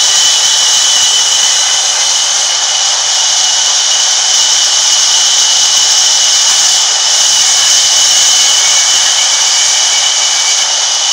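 Large sawmill band saw running with its blade cutting through a wooden log fed across the table: a loud, steady high-pitched whine with a constant tone.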